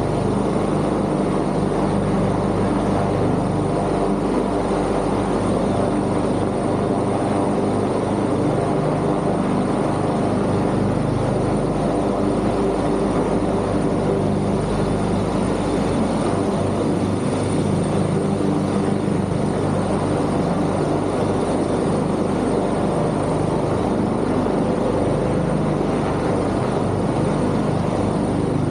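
Fire department helicopter's rotor and turbine engines running in a steady, continuous drone as it flies past.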